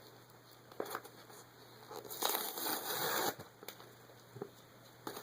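Packaging crinkling and rustling as a mailed T-shirt is unwrapped by hand, with a louder burst of crinkling about two seconds in and a few scattered handling clicks around it.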